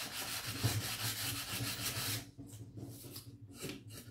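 Quick back-and-forth rubbing on a chalk-painted pine wooden frame, typical of hand-sanding. It stops suddenly about two seconds in, leaving a few fainter, separate strokes.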